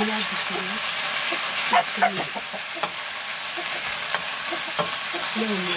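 Chopped green vegetables sizzling in a black iron wok, stirred with a steel ladle: a steady frying hiss with scattered clicks and scrapes of the ladle against the pan.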